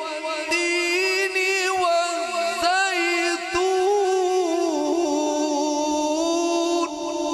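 A man's voice chanting one long, unbroken melismatic phrase of Quran recitation in the slow, ornamented mujawwad style, the pitch wavering and turning through the held notes. It thins out near the end.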